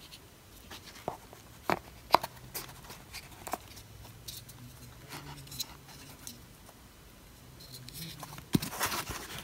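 Light clicks and taps of a small plastic two-prong airline headphone adapter being handled and turned over in the fingers.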